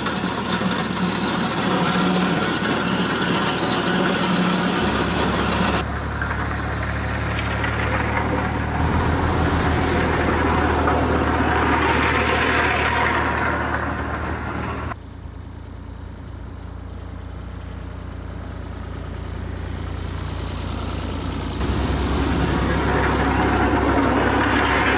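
Ford 4000 tractor engine running steadily under load while it drags a grader over a gravel road, with a hiss of crunching gravel over it. The sound swells as the tractor passes close about twelve seconds in and again near the end, and drops abruptly quieter about fifteen seconds in.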